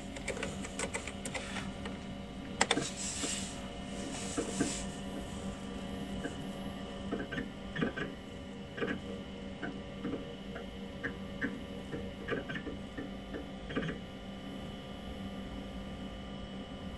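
Keys clacking on an old PC keyboard as a command is typed, then the 20 MB hard disk of a Sanyo Intel 8086 PC chattering with irregular seek clicks while MS-DOS CHKDSK checks it. The running computer hums steadily throughout.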